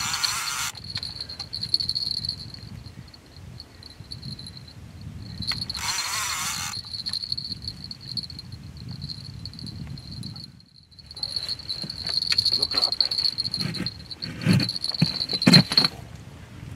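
Insects chirring in one steady, high, thin tone that breaks off now and then, over a low rumble. There are two short bursts of hiss, one at the start and one about six seconds in, and a few knocks near the end.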